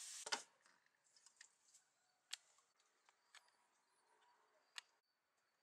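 A door thuds once, about a third of a second in, followed by a few faint, sharp clicks and taps. A faint, steady, high insect trill comes in around the middle.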